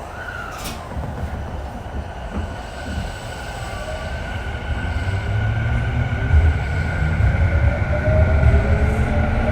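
Running sound inside Tokyu 3000-series motor car DeHa 3509: the traction motors whine in several tones that rise slowly in pitch over a low rumble of wheels on rail, growing louder as the train accelerates. A short falling tone and a click come just after the start.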